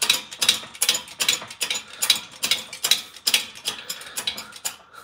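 Rapid metallic clicking and ratcheting, several clicks a second, from a hand-worked drilling tool cutting a hole through steel square tubing. The clicking stops near the end, as the hole is almost through.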